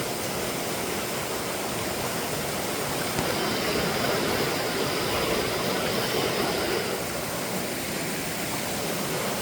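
Rain-swollen creek running high and fast, a steady, unbroken rush of water from heavy rain and flash flooding.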